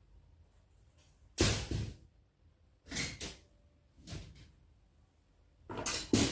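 A few brief rustling and knocking noises of household objects being handled, four in all, each lasting under half a second and spaced one to two seconds apart. The first is the loudest.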